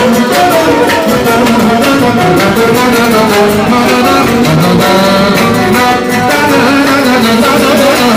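Loud live manele music: an instrumental passage with a steady beat and a melodic lead, without singing.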